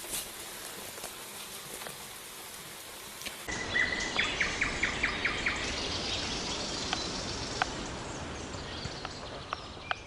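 Birds chirping over a steady outdoor hiss. After an abrupt cut about three and a half seconds in, the background gets louder and one bird gives a quick run of about six chirps, with a few scattered calls after.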